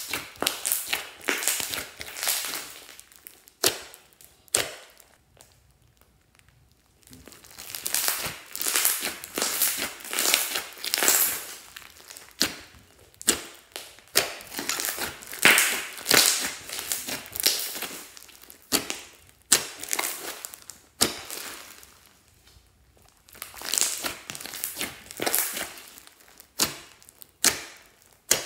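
Hands kneading and squishing a large mass of thick, glossy slime mixed with small beads: sticky, crackly squishing in bouts of a few seconds, with two short quiet pauses.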